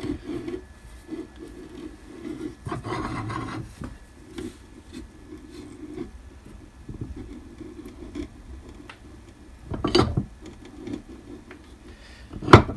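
Hand arbor press being brought down onto a keyway broach set in a bevel gear's bore: metal rubbing and scraping, then two sharp metallic clanks about ten and twelve seconds in, the second the loudest.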